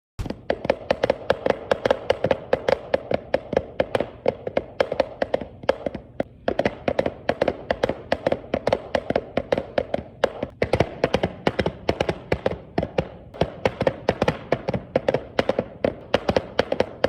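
Rapid, irregular tapping or clicking, several sharp taps a second, with brief pauses about six and ten seconds in.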